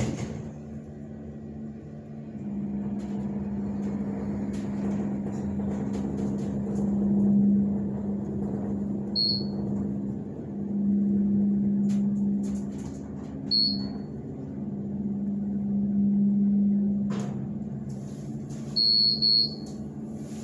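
2003 KONE hydraulic elevator's pump motor running with a steady hum that swells louder three times while the car travels. Short high electronic beeps sound twice, then a quick double beep near the end, with a knock a little before it.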